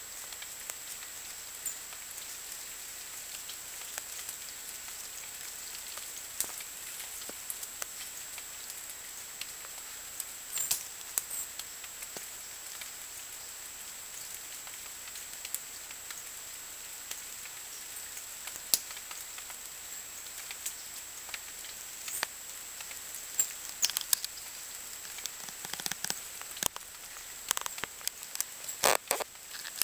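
Scattered light clicks and taps over a steady hiss, coming more often near the end.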